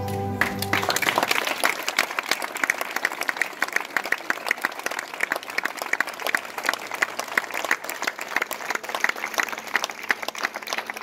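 Music stops within the first second, then an audience applauds, many hands clapping steadily.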